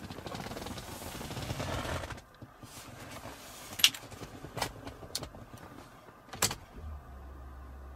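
A car's electric window motor whirs for about two seconds, followed by several sharp clicks. A low steady hum starts near the end.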